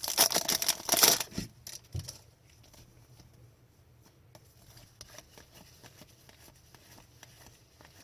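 Trading card pack wrapper crinkling for about the first second and a half, then faint scattered clicks and taps of cards being handled and flipped through.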